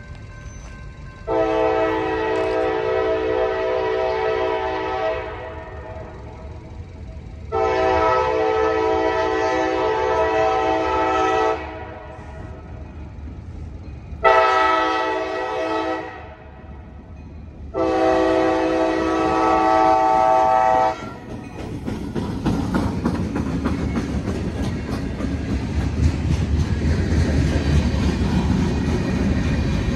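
Freight locomotive air horn sounding the grade-crossing signal: two long blasts, a short one, and a final long one. Right after that the locomotives pass close by and freight cars roll past with a steady rumble and wheel clatter.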